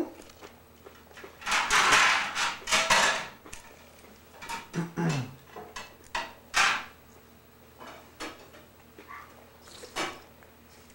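Tableware sounds at a child's meal: a glass bowl and utensils knocking and clinking on the table in a few separate sharp clicks, with a louder rustling stretch lasting over a second about two seconds in.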